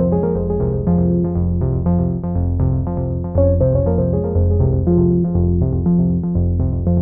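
Background music: a synthesizer keyboard tune with notes changing at a steady pace.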